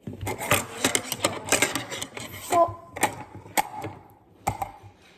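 Hard objects being handled and knocked together: rapid clattering for a couple of seconds, then a few separate knocks.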